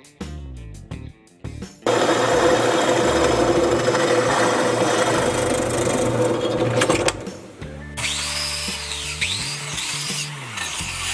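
A power tool runs steadily for about five seconds, starting about two seconds in and cutting off sharply, over background music.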